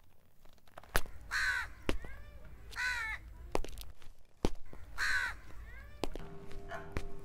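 A crow cawing three times, about one and a half to two seconds apart, with several sharp taps in between.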